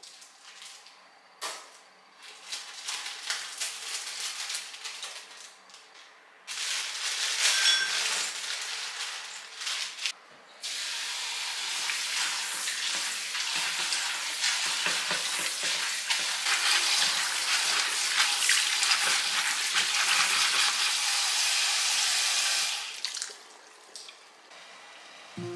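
Kitchen tap running into a sink in spells: softer, uneven runs with a knock in the first few seconds, a louder run, then a steady full stream from about ten seconds in that cuts off suddenly near the end.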